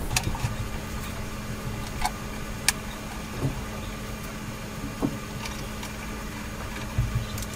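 A few sharp, scattered metal clicks of small bolts and an Allen key being worked into the mainboard's mounting points, over a steady low hum.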